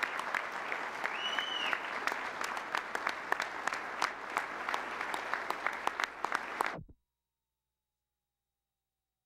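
Audience applauding, many hands clapping, with a brief high tone a little over a second in. The applause cuts off suddenly near the end.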